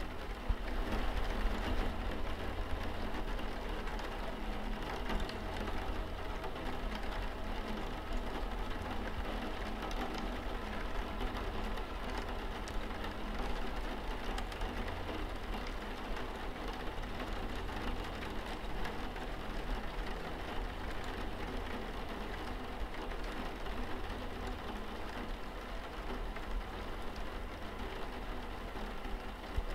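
Steady rain pattering on a window pane, with many small drop ticks over a constant low rumble.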